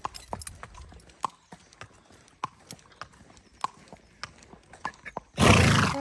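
A horse's hooves clip-clopping at a walk on an asphalt road, irregular sharp clicks a couple of times a second. Near the end comes a loud, short rush of noise, the loudest sound.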